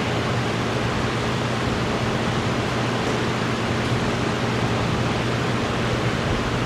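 Steady, even hiss with a low hum underneath, unchanging throughout; room noise of the recording with no speech or events.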